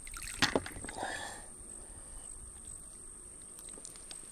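Steady high-pitched insect chirring, cricket-like, with a few short knocks and a brief rustle in the first second and a half.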